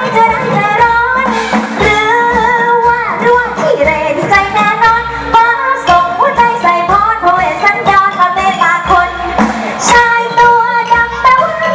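A woman singing a Thai song into a headset microphone over amplified backing music with a steady low beat and drum hits.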